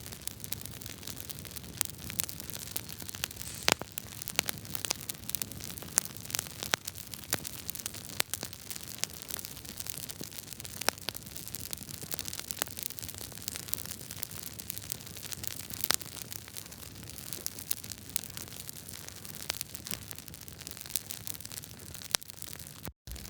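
Wood fire crackling in a fireplace: a steady hiss with frequent irregular sharp pops and snaps from the burning logs. The sound cuts out for a moment just before the end.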